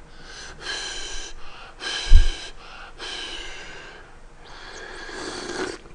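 A person blowing on and slurping hot ramen broth from a metal ladle: several breathy sounds at the lips, the last and longest near the end. There is also a dull thump about two seconds in.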